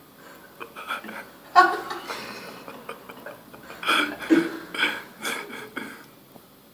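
Short bursts of laughter and indistinct voices, starting about a second and a half in and coming in quick spurts around the middle before fading out near the end.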